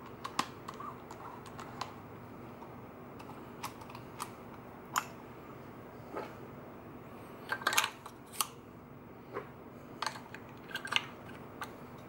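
Scattered clicks and light plastic-and-metal clatters from handling a Revue S8 Super 8 camera as the battery compartment in its pistol grip is opened and AA batteries are fitted. There are short runs of clicks a little past halfway and again near the end.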